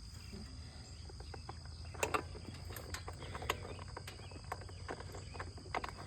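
Steady high drone of insects over a low rumble, with scattered light clicks and taps; the loudest is a double click about two seconds in.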